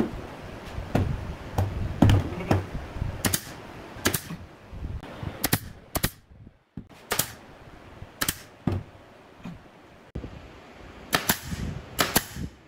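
SOYI brad nailer firing nails into the joints of a wooden frame: a dozen or more sharp snapping shots at irregular intervals, some in quick pairs.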